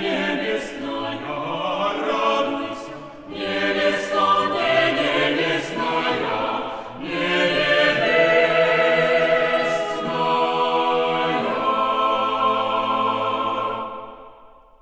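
A choir singing the closing phrases of a Suprasl kant, an 18th-century Church Slavonic devotional part-song, with short breaths between phrases. It ends on a long held final chord that dies away near the end.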